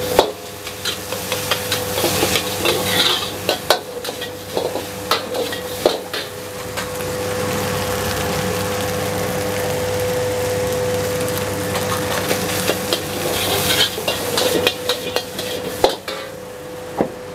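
Metal spatula scraping and clanging in a wok while fried rice is stir-fried, with the rice sizzling in the hot pan. The clanks come in quick runs over the first six seconds and again in the last few, with a steadier sizzle and a constant hum in between.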